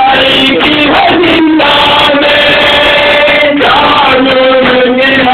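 A group of men chanting a noha, a Shia lament, together in long held sung lines that glide from note to note. The recording is very loud.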